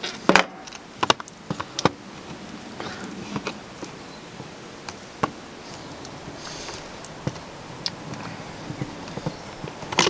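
Scattered sharp clicks and knocks of hard plastic as a dishwasher's pump assembly is handled and its plastic clips are worked into place, most of them in the first two seconds.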